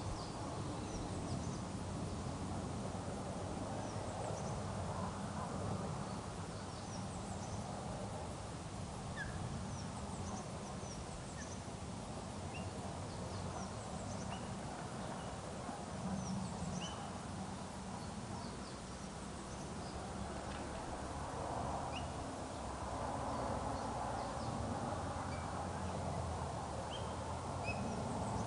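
Steady low wind noise on the microphone with scattered short, high chirps of small birds calling in the background.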